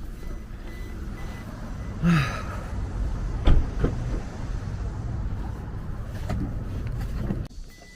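Low, steady rumble of a motor vehicle running, with a short falling-pitched sound about two seconds in and a sharp knock a little later. The rumble drops away just before the end.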